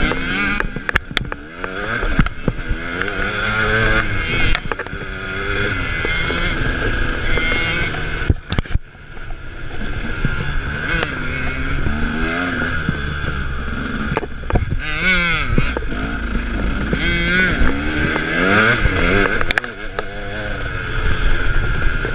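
KTM 300 two-stroke dirt bike engine revving up and easing off over and over as the bike is ridden along a rough trail, with a brief drop in throttle about eight seconds in. A few sharp knocks stand out over the engine.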